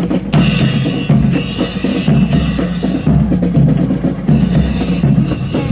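Marching music with bass and snare drums keeping a steady beat.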